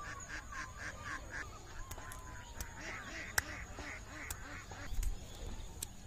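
Waterfowl, geese or ducks, calling in two quick runs of short repeated calls, the first at the start and the second around the middle. A few sharp clicks cut through, the loudest about three and a half seconds in.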